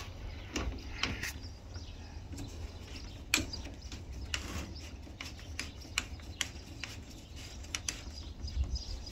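Scattered light clicks and scraping of a MIG gun's screw-on connector being pushed and twisted into the welder's front socket, its threads not yet catching, over a low steady rumble.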